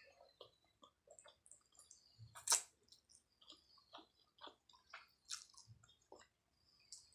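Close-up mouth sounds of a person slurping and chewing instant ramen noodles: wet smacks and clicks, with a sharper, louder slurp about two and a half seconds in and another a little past five seconds.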